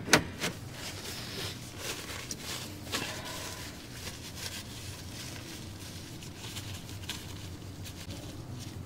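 A paper towel dispenser clacks sharply right at the start, then light rustling of paper and clothing over the next few seconds. After that there is only a steady low room hum.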